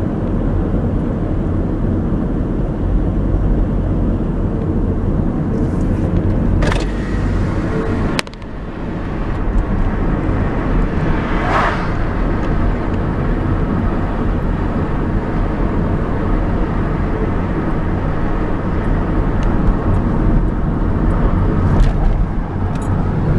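Steady engine and tyre road noise of a car being driven, heard as a low rumble inside the cabin, with a brief dip about eight seconds in and a short hiss near the middle.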